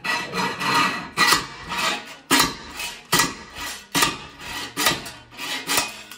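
Homemade slide hammer: its weight slid along a threaded M8 rod and slammed against its stop over and over, about two metal blows a second with a rasp of the weight sliding between them. It is pulling a rust-seized bearing out of a Regulmoto ZR250 swingarm on an expanding anchor bolt, and the bearing comes free near the end.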